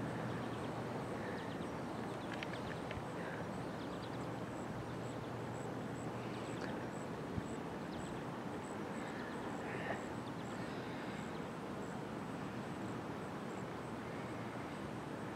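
Steady outdoor ambience: an even background hiss with a few faint short chirps now and then and a single small click about seven seconds in.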